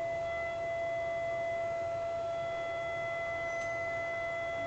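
Realistic Moog MG-1 analog synthesizer holding one steady note with its oscillators hard-synced, a sustained tone with a few fixed overtones and no change in pitch.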